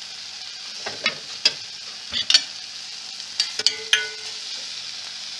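Tomato and onion curry base frying in a stainless steel pot with a steady sizzle. Several sharp metallic clinks against the pot come through it, one ringing on briefly about four seconds in.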